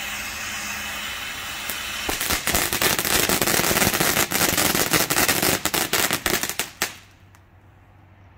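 ShowTime Golden Dragon cone fountain firework burning: a steady hiss of spraying sparks, then about two seconds in a loud run of dense, rapid crackling. The crackling cuts off suddenly about seven seconds in as the fountain burns out.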